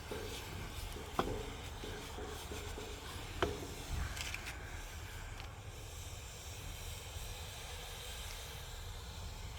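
Steady outdoor background of low rumble and hiss, with two sharp knocks, about a second in and again about three and a half seconds in.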